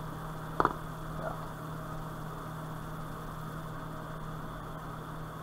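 Steady low electrical hum with a hiss, and a single sharp click a little over half a second in, followed by a fainter tick.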